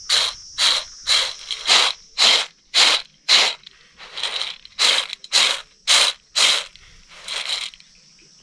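Dried kernels rattling and scraping in a steel plate as they are scooped and shaken, about two strokes a second, stopping near the end. A steady high buzz of insects runs underneath.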